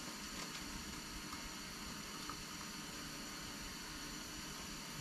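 Steady hiss with a few faint light clicks of steel forceps working a hook out of a walleye's mouth.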